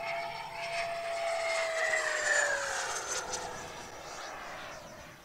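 Electric ducted fan of a Freewing Avanti RC sport jet whining on a fast pass; its pitch drops between about two and three seconds in as it goes by, and the sound fades toward the end.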